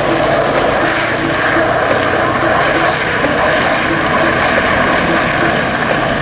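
Steady rushing noise of wind on the microphone and skateboard wheels rolling on asphalt at speed, recorded by a camera moving downhill with the riders.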